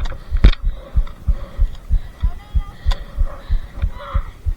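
Deep bass thumps repeating steadily, about three a second, in a heartbeat-like beat, with a sharp click about half a second in.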